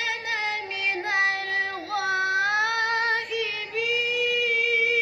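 A boy's high voice chanting Quran in the melodic, drawn-out mujawwad style, bending and ornamenting long held notes and settling near the end into one long steady note, amplified over a microphone.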